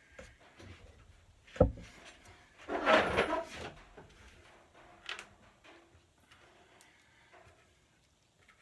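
Handling noises from assembly work on a bench: a sharp knock, then about a second of scraping or rustling, then a lighter click.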